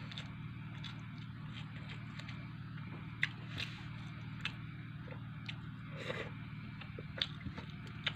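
A person eating rice and fried fish by hand: chewing, with scattered sharp smacks and clicks, over a steady low hum.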